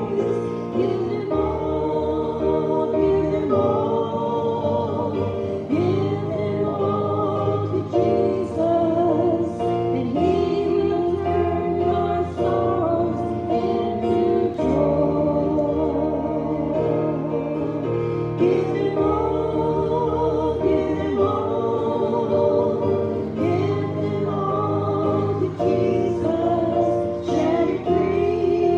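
Gospel hymn sung by a group of voices with instrumental accompaniment.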